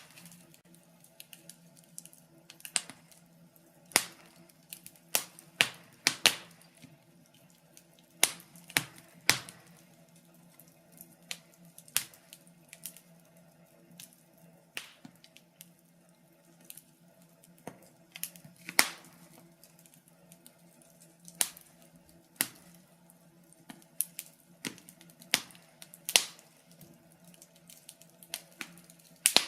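Wood fire in a fireplace crackling, with irregular sharp pops every second or so over a faint steady hum.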